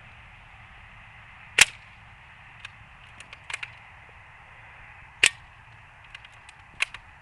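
Two sharp shots from an L96 bolt-action airsoft sniper rifle, about three and a half seconds apart, with several lighter clicks and taps between and after them.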